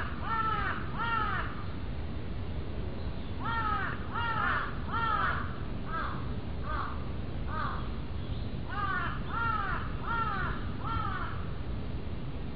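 Crow cawing in runs of three or four harsh calls, each dropping in pitch at its end, with a few fainter single caws in between, over a steady low background rumble.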